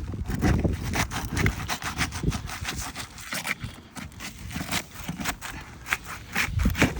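Roof snake shingle-removal bar scraping and prying under asphalt shingles, with quick irregular scrapes and crackles as the tightly sealed shingles are forced apart and tear.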